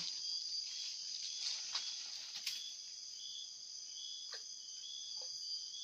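Night chorus of crickets and other insects: a steady high-pitched buzz with a lower chirp pulsing about twice a second. Two brief falling chirps come in the second half.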